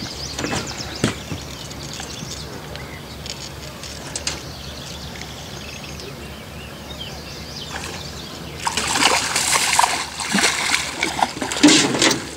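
A fish shot with a bowfishing arrow thrashing at the surface beside the boat as it is brought in, giving a run of loud splashes that starts about three quarters of the way through.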